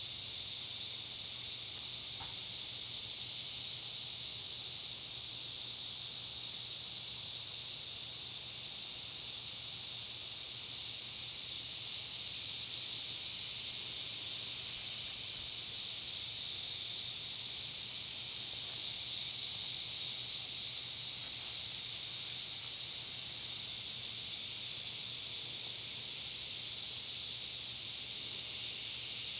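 A steady high hiss with a faint low hum underneath, unchanging throughout.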